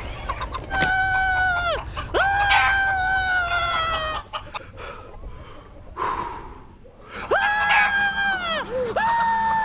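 A man screaming while chickens attack him, mixed with roosters crowing: four long, drawn-out cries, each rising sharply and then holding and falling slightly, with quieter noisy stretches between them.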